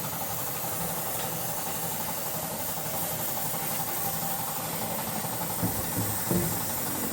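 Workshop machinery running steadily: a motor hum with a steady whine and a hiss, and a few low knocks near the end.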